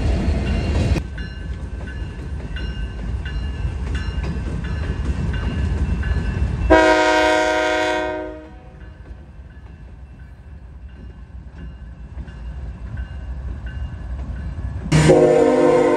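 Diesel freight locomotives (GE ET44ACs) passing with a heavy rumble. After about a second the rumble drops and a grade-crossing bell ticks steadily over the passing train; about seven seconds in a locomotive horn gives a short blast that fades away, and near the end a louder locomotive horn starts suddenly.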